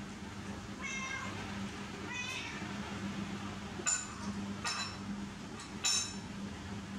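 Baby macaque giving five short high-pitched squeaky calls, spread through a few seconds; the last three are sharper and louder than the first two.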